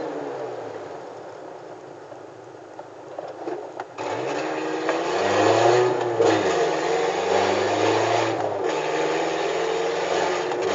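VW Gol G4's engine through a straight exhaust with the lambda sensor removed, heard from the moving car. Its revs fall away and it goes quieter at first, then about four seconds in it comes back on sharply and pulls with rising pitch, dips once as through a gear change, rises again and settles to a steadier run near the end.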